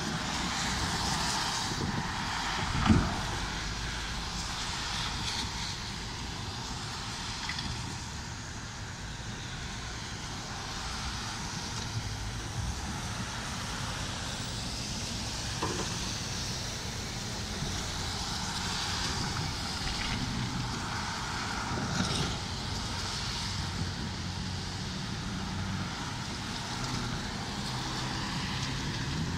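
Road traffic passing on a wet road, tyres hissing as cars and pickup trucks go by, swelling and fading. A sharp knock stands out about three seconds in, with a smaller one later.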